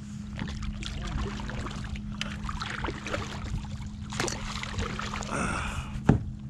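Water splashing and lapping against a kayak hull as a hooked tautog fights at the surface beside it, with scattered small knocks and one sharp knock about six seconds in, over a steady low hum.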